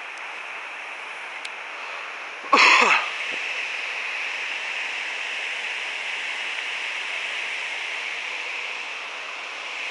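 Steady flowing river water, with one brief, loud call falling in pitch about two and a half seconds in.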